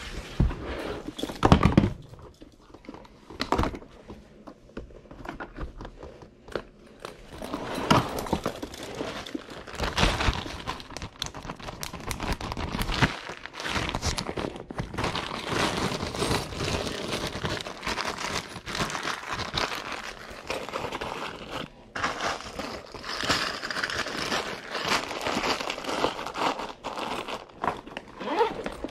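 Handling noise: irregular rustling, crinkling and clattering as tools and parts are moved about and a tool bag is rummaged through, with a few loud knocks about a second in.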